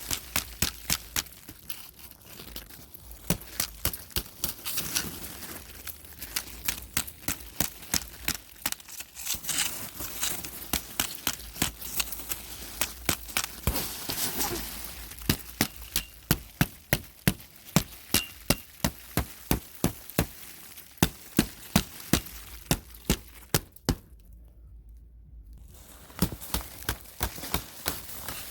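Thick frozen snow crust cracking and crunching, breaking into pieces as a run of sharp cracks, several a second. The sound drops out completely for about two seconds near the end.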